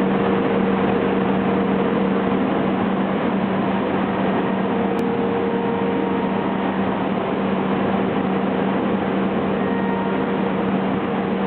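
HOMAG BOF 211 five-axis CNC machining centre milling a solid-wood stair part: steady machining noise with a constant low hum.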